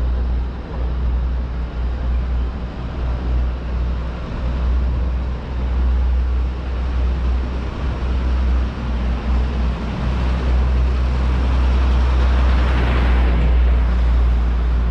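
Wind buffeting the microphone, a steady low rumble. In the last few seconds a cargo truck approaches and passes close by, its road noise swelling to the loudest point and then fading.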